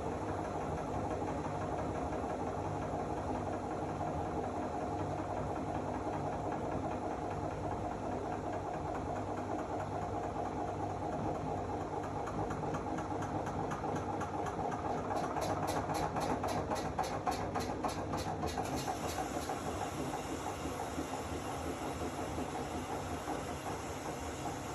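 Zanussi AquaCycle 500 FA 623 washing machine running with a steady motor hum. From about halfway through, a quick even ticking, about three or four a second, comes in over the hum, then fades away.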